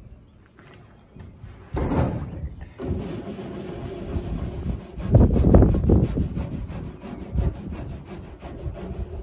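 Irregular low rumbling of wind on the microphone, with a louder stretch about five seconds in, mixed with rubbing and scraping from hands and tools working on the roof.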